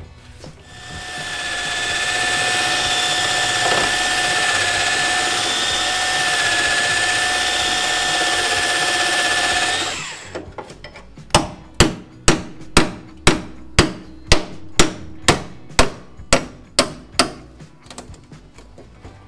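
A handheld power tool spins up and runs at a steady whine for about nine seconds, then stops. It is followed by about fourteen sharp hammer blows on steel body panel, roughly two a second.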